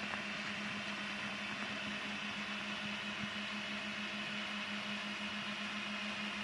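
A steady hum at one constant pitch under an even hiss, unchanging throughout, like a small engine or machine running.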